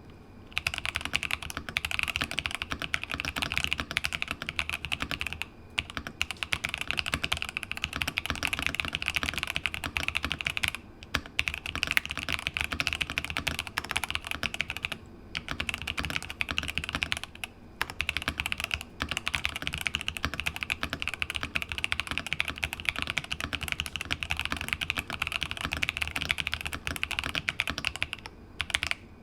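Fast, continuous typing on a Press Play Essential 75 mechanical keyboard, a foam-dampened, isolated top-mount board, in a typing sound test. The key strokes run in dense streams, with a few short pauses.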